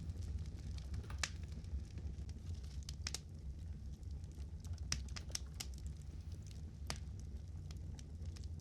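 Fire crackling: sharp, separate pops scattered irregularly over a steady low rumble.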